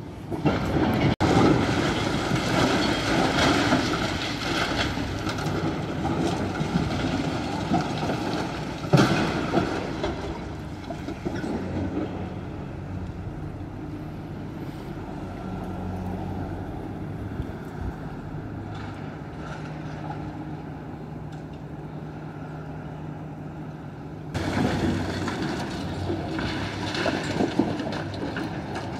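Building demolition: heavy machinery rumbling and crunching as it breaks up the structure. It is loudest over the first ten seconds, settles to a steadier hum through the middle, and grows loud again suddenly about three-quarters of the way through.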